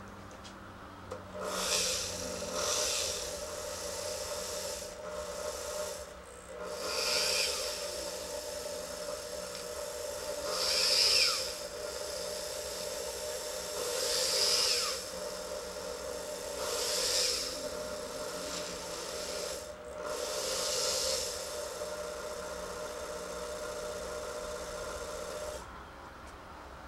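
Small rotary tool with a bit running at a steady whine, starting about a second in and stopping near the end, with about seven short bursts of grinding as the bit cuts into acrylic.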